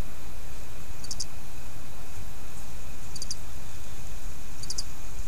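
Steady outdoor background hiss with a low rumble, broken three times by a brief cluster of rapid, high-pitched chirps.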